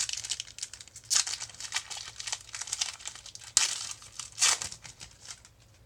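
Foil wrapper of a basketball card pack being torn open and crinkled, in irregular crackly bursts, the sharpest about a second in and twice more near the middle.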